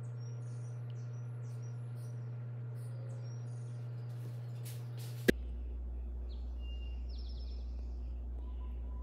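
Quiet room tone with a steady low electrical hum and faint, short high chirps scattered through the first half. About five seconds in there is one sharp click, and the hum drops to a lower pitch after it.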